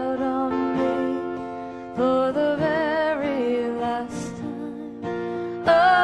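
Background music: a slow song with acoustic guitar and long, slightly wavering held melody notes.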